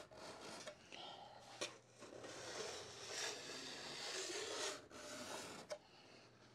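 Large hand file rasping along a snowboard's steel edge in several long strokes, sharpening and beveling the edge and smoothing out scuff marks from riding.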